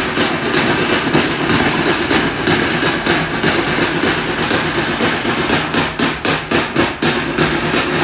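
A seated group of performers clapping and slapping in unison in a fast, steady rhythm of sharp strikes, the strikes standing out most clearly about six to seven seconds in.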